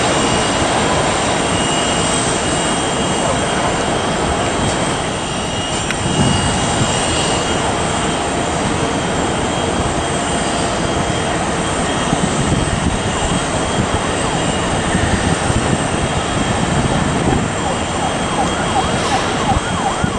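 Airbus A330-300 jet engines at takeoff thrust: a steady, loud roar with a faint high whine running through it.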